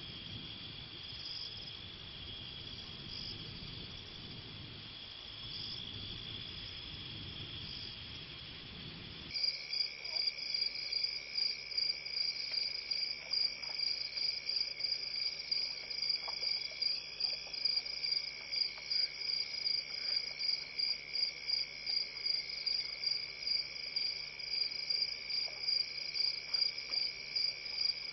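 Night chorus of crickets and other insects, steady and high-pitched. About nine seconds in it switches to a louder chorus, with crickets chirping in a fast even rhythm of about three chirps a second over a steady high drone.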